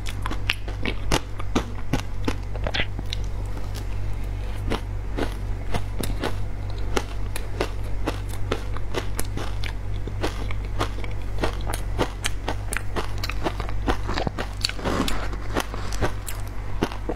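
Ice coated in matcha powder being chewed close to a clip-on microphone: a dense run of sharp crunches, several a second.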